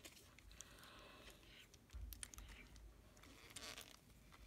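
Faint clicks and soft rustling of hard plastic toy parts being handled, with a low handling thud about two seconds in.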